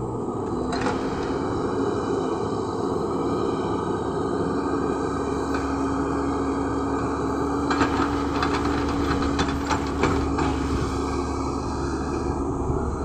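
LiuGong crawler excavator's diesel engine running with a steady drone as it works the boom and bucket, loading soil into a dump truck and swinging back. A cluster of sharp knocks and rattles comes about eight to ten seconds in.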